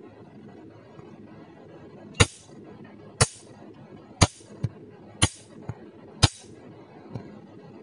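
Picosecond laser firing single 1064 nm pulses through its handpiece onto black laser test paper: five sharp snaps about a second apart, with a few fainter clicks between them.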